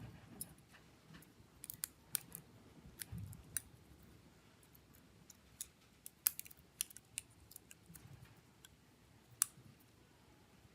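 Faint, irregular sharp clicks and light taps of small tools and phone parts being handled, with a few soft low thuds.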